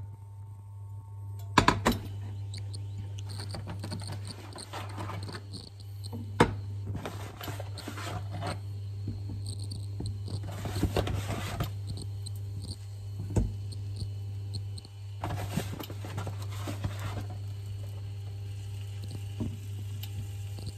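Frozen breaded fish fillets set down one by one into a hot frying pan, each giving a burst of sizzling lasting a second or two, with a few sharp knocks against the pan. A steady low hum runs underneath.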